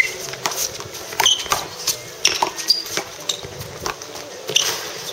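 A one-wall handball rally: the small ball smacked by bare hands and slapping off the wall and the court surface, making irregular sharp claps about two a second. Brief high squeaks of shoes on the court come in between.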